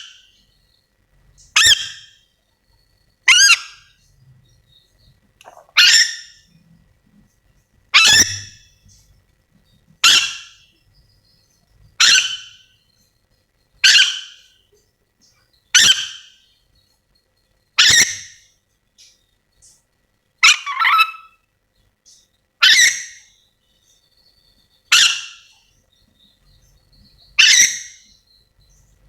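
Nuri dora (ornate lorikeet) giving its natural contact call: short, loud, harsh screeches repeated about every two seconds, about thirteen in all, with a quick double call near two-thirds of the way through.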